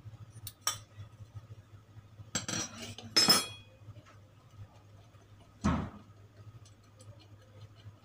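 Metal parts clinking and clattering as a pulley is handled and fitted onto a washing machine's wash motor shaft. There are a few light clicks, then two clattering bursts ending in a ringing clink about three seconds in, and a single dull knock near six seconds.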